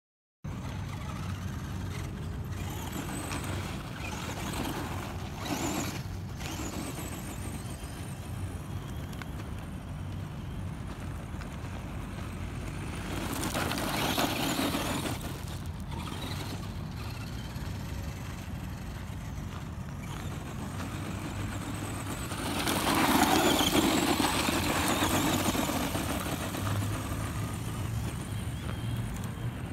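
Electric RC monster truck driving on loose gravel, its tyres crunching and throwing gravel. It gets louder twice as it passes close, about halfway through and again about three quarters through, over a steady low rumble.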